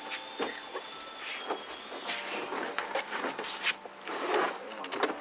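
Handling noise from the cargo-floor panel of a 2005 Honda CR-V, which doubles as a folding table, being lowered and worked back into the cargo area: a string of short knocks and clicks over rustling and scraping.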